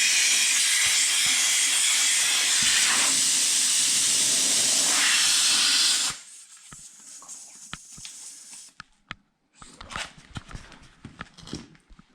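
Compressed air hissing loudly and steadily for about six seconds, then cutting off suddenly. Faint clicks and taps of small metal parts being handled follow.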